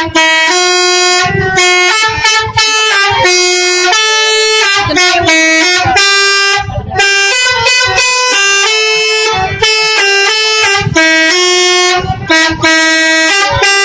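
Bus 'telolet' horns, electric multi-tone air horns, playing a quick tune of changing chords, one stepped note after another with short breaks, loud.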